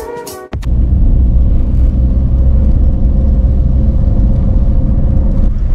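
Steady low rumble of engine and road noise heard inside a Suzuki car's cabin while driving. Before it, the last half-second of a music intro cuts off abruptly.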